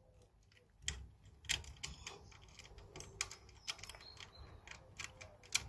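Light, irregular metallic clicks and taps as a small battery terminal bolt and the positive wire's ring lug are fitted and threaded by hand onto a 12 V battery terminal.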